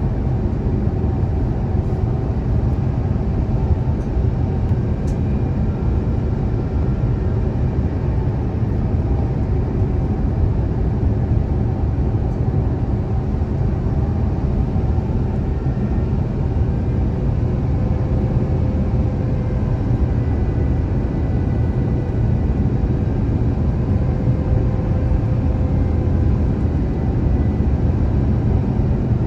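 Steady cabin noise of an Airbus A350-1000 in flight on approach: a low rumble of airflow and engine noise from its Rolls-Royce Trent XWB engines, with a faint steady whine over it.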